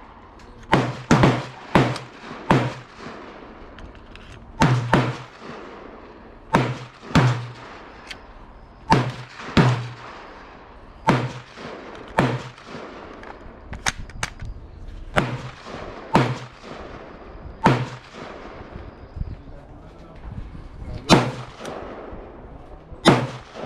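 A 5.56 rifle firing about twenty shots at an uneven pace, some in quick pairs a fraction of a second apart. Each shot rings out with a short echo.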